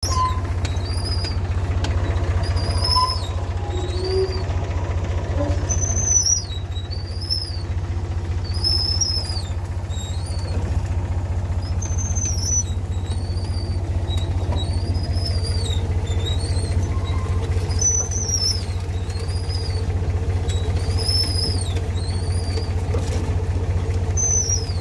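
Engine of the machine used for planting marafalfa cuttings, running steadily with a low hum, while high, short arched chirps repeat about once a second.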